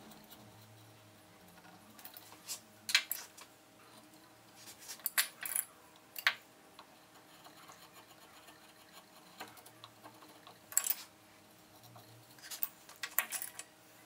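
Carving chisel paring basswood by hand: short scraping cuts in about five brief bursts a few seconds apart.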